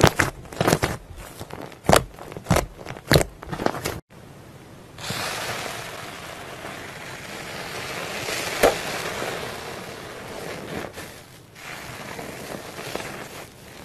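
Hands squeezing and pressing thick pink slime, giving a run of sharp crackling pops from trapped air. Then, about four seconds in, a steady soft crackling hiss as a metal-toothed comb rakes through fluffy slime in a plastic tub.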